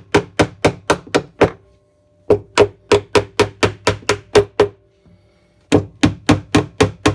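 Quick light taps knocking press-fit subwoofer studs out of a pinball cabinet's wooden bottom, each tap with a short ringing tone. They come in three runs of about four taps a second, with short pauses between.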